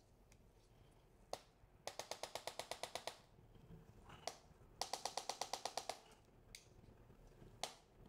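Handheld chiropractic impulse adjusting instrument firing rapid trains of sharp clicks against the back: two bursts of about ten clicks each, roughly eight a second, with a few single clicks between. The instrument delivers thrusts at the velocity and frequency of a spinal manipulation.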